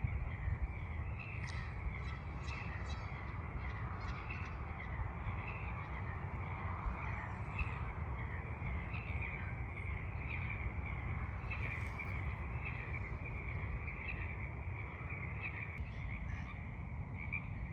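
Many frogs chorusing, their short calls overlapping into a continuous high-pitched chorus, over a steady low rumble.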